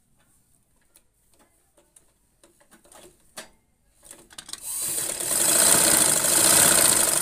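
Butterfly sewing machine driven by an add-on electric motor, started by pressing the motor's speed-control pedal. After a few faint clicks, the motor and machine start up about four seconds in and run fast and steadily, sewing, easing off slightly near the end.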